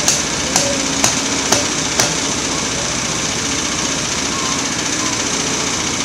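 LogMaster LM1 bandsaw mill's engine idling steadily, not cutting. Five sharp knocks about half a second apart sound over the first two seconds.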